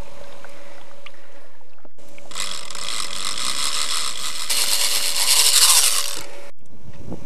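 Baitcasting reel's ratchet clicker buzzing as line is pulled off it, the sign of a catfish taking line on a run. It starts about two seconds in, gets louder about halfway through, and cuts off abruptly near the end.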